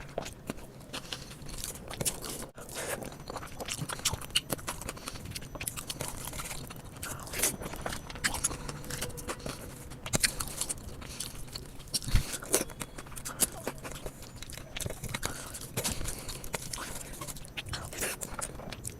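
A person chewing and biting food close to the microphone: irregular wet mouth clicks and occasional crunches.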